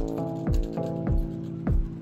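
Background music with a steady beat: a kick drum nearly twice a second under sustained chords.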